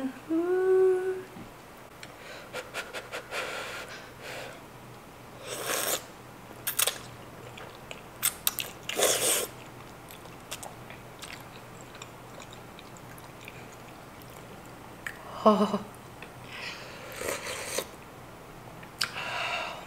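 Close-up eating sounds: several slurps of thick udon noodles and creamy sauce taken from a wooden spoon, with chewing between. Short hummed sounds of enjoyment at the start and again near the end.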